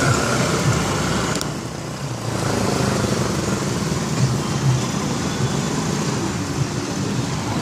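Street traffic: vehicle engines running in a steady mix of road noise, with a steady high tone that cuts off about a second and a half in.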